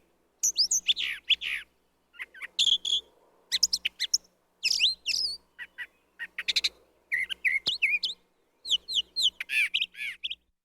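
Brown thrasher singing: a long run of short, varied phrases of quick whistled and chirping notes, each separated by a brief pause.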